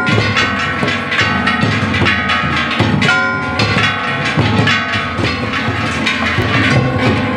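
Shishimai lion dance accompaniment: a taiko drum and hanging brass gongs (kane) struck with wooden beaters in a fast, steady beat, the gongs ringing between strokes.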